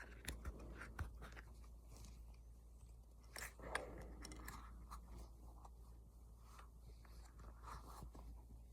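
Faint handling noises as a tight, stiff part is stretched and worked by hand: scattered small clicks and rubbing, with a few sharper clicks about a second in and near the middle.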